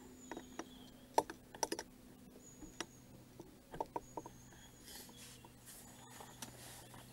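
Handling noise: scattered, irregular light clicks and taps over a faint steady hum.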